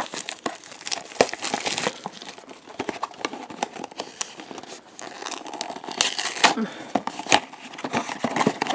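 A cardboard blind box being torn open by hand and its packaging crinkled, with irregular crackles and sharp clicks, a little louder about six seconds in.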